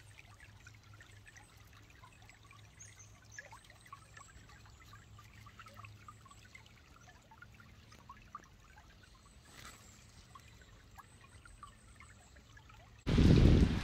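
Shallow stream trickling and babbling over stones, faint, with many small plinks of water. Near the end a much louder rush of noise cuts in abruptly.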